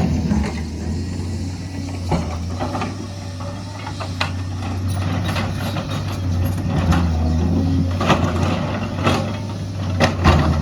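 Earthmoving machine's diesel engine running steadily, with a few sharp metallic knocks and clanks from its working gear scattered through.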